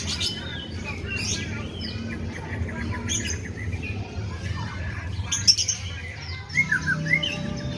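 White-rumped shama singing a rapid, varied song of chirps, rattling trills and whistled glides that includes mimicry of the sooty-headed bulbul's calls. A sharp click sounds about halfway through.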